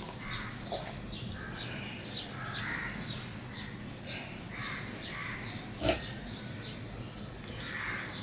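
Birds chirping and calling over and over in short, falling notes, with one sharp knock about six seconds in.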